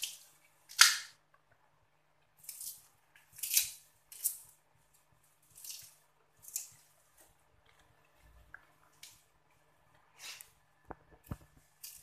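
Blended spice paste spitting and popping in a hot metal wok: short, irregular hissing spurts roughly once a second, with a sharp knock of the metal spoon against the wok about a second in.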